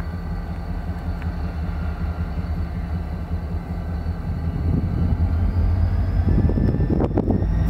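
Diesel freight locomotive approaching: a steady low engine drone that grows louder. Clattering of the wheels on the rails starts about six seconds in and builds toward the end.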